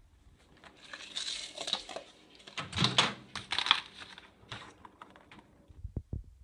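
Rustling and crinkling handling noise with several sharp knocks, loudest about three seconds in, then a few short clicks about six seconds in.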